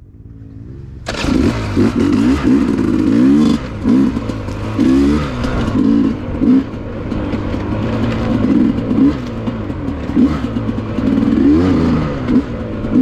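Dirt bike engine revving up and down over and over while riding, coming in suddenly about a second in, with a steady rushing hiss behind it.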